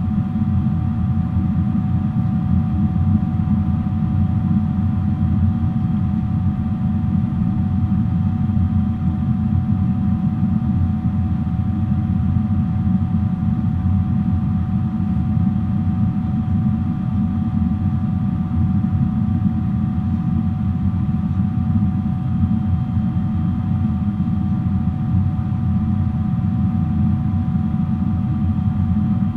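Boeing 777-300 airliner in flight: the steady low rumble of engines and airflow, with a few faint steady whining tones above it. It is heard from inside the cabin.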